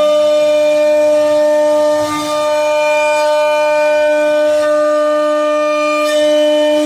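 CNC router spindle running at speed while carving wood: a steady high whine at one unchanging pitch, dipping briefly about two seconds in and again near the end.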